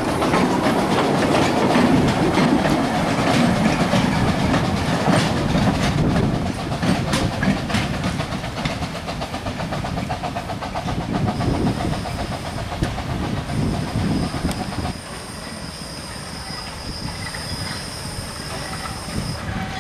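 Narrow-gauge train of open wooden passenger carriages clattering over the rail joints as it passes and draws away. The clickety-clack is loudest at first and fades, dropping off sharply about fifteen seconds in.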